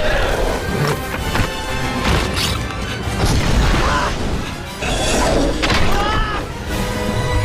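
Loud orchestral film score with crashing and booming impact sound effects over it.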